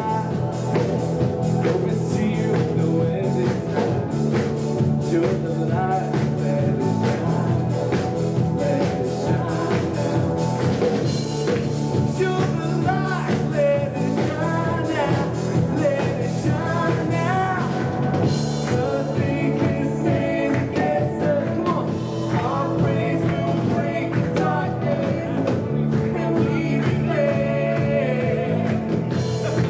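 Live worship band playing a rock-style song: singing over electric guitar, sustained low notes and a steady drum beat.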